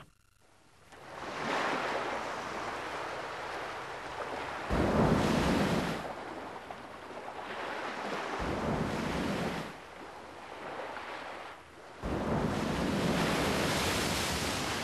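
Ocean surf: waves washing in and breaking, swelling three times to a loud rush before falling back.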